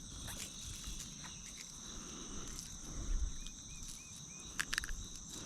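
Steady high-pitched insect chorus, with four short faint chirps about three and a half seconds in and a few sharp clicks soon after.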